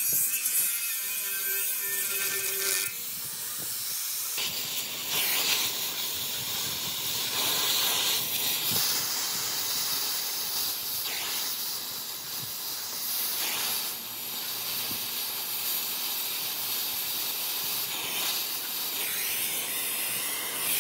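A pressurised jet hissing steadily, its strength swelling and easing every few seconds. For the first three seconds a steady hum with several held tones sounds beside it, then stops abruptly.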